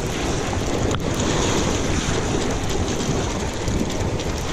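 Steady wind buffeting the microphone, over the wash of waves at the shore.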